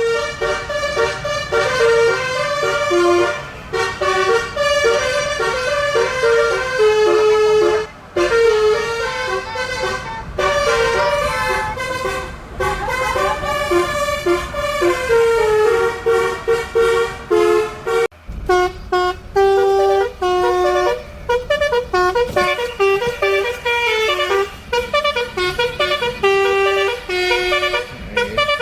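Telolet basuri bus horn, a multi-tone horn, playing a tune of quick stepped notes. It breaks off briefly about 18 seconds in, then a faster tune of short notes follows.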